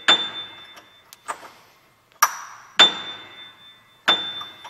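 Top A of a grand piano prepared with a screw wedged between its strings, played several times: sharp metallic plinks, each leaving a high ringing tone that fades, with a couple of fainter taps between. The screw between the strings changes the note's tone; this is the preparation being checked.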